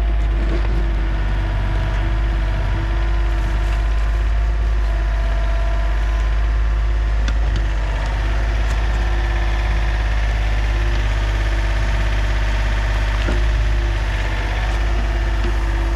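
John Deere 30 compact excavator's diesel engine running at a steady speed, with a few light knocks.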